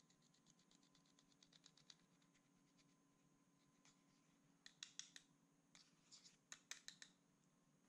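Faint scraping and scratching as a small tool chips pressed eyeshadow out of its compact pan. A quick run of light scratches comes in the first two seconds, then louder bunched scrapes and clicks from about five to seven seconds in.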